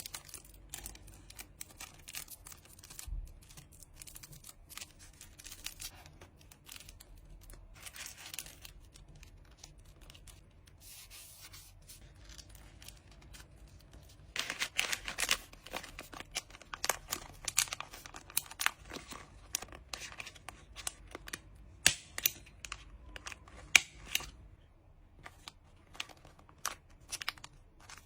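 Hands packing a card order: packaging rustling, crinkling and tearing, with scattered sharp clicks and taps. A dense run of tearing and rustling starts about halfway through, and there are a few louder clicks near the end.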